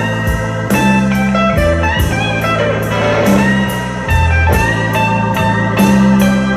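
Instrumental blues with slide guitar lines over sustained bass notes and a steady beat, played back through a hi-fi speaker system.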